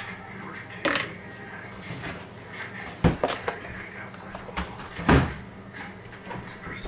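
Several sharp knocks and bumps of things being handled in a kitchen, the loudest just after three seconds in and about five seconds in, over a low steady hum.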